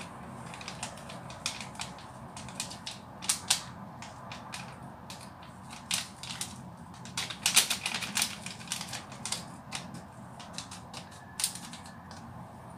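A plastic sachet of agar-agar powder crinkling and being tapped as its powder is shaken out into a pot of water. Irregular crisp clicks and rustles, thickest about halfway through.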